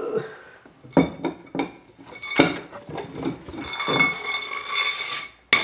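Metal parts and tools clanking together: a string of sharp knocks, then a ringing metallic tone that hangs on for a couple of seconds, and a last hard clank near the end.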